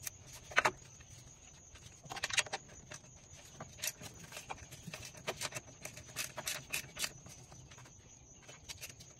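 Pliers and a metal spring hose clamp clicking and clacking against the plastic coolant reservoir and its hose fitting as the hose is worked back on: scattered short clicks in small clusters, busiest in the second half.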